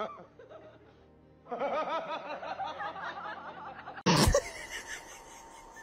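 A person laughing in short, pulsing bursts over music, with a loud sudden outburst about four seconds in.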